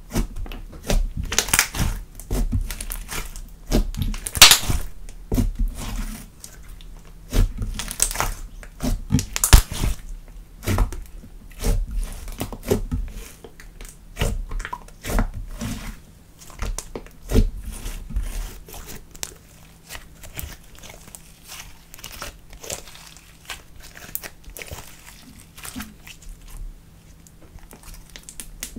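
Thick glossy slime being pressed, poked and folded by hand, giving a busy run of wet clicks, pops and crackles as trapped air bursts, with the loudest pops about four and nine and a half seconds in and softer squishing in the second half.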